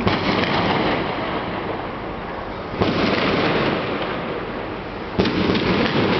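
A fireworks display: three heavy bursts about two and a half seconds apart, each followed by a long noisy tail that fades slowly.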